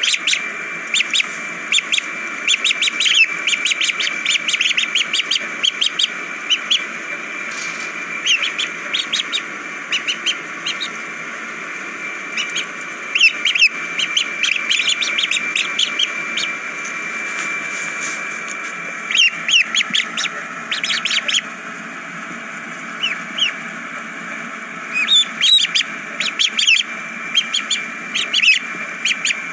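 Ducklings peeping, many short high chirps coming in quick clusters, over the steady splash of a stream of tap water pouring into a plastic basin.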